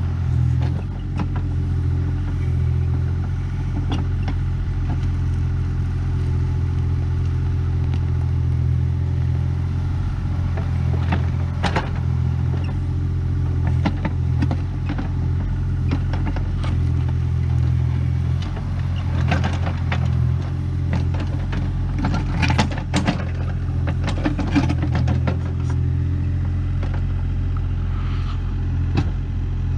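Kubota KX040 mini excavator's diesel engine running steadily while it works a tilting grading bucket, with scattered clanks and rattles of the machine and bucket, thickest about two-thirds of the way through.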